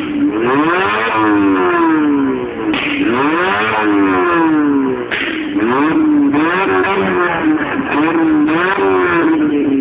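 Proton Satria 1.5-litre four-cylinder engine revved repeatedly through a dual exhaust, its pitch rising and falling in long sweeps, then in quicker blips over the second half. Several sharp pops from the exhaust come between revs.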